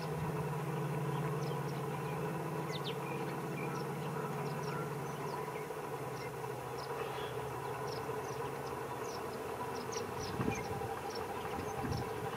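Steady low hum of a diesel locomotive engine running, its pitch dropping slightly about halfway through. Many short high chirps sound over it, and a few low thumps come near the end.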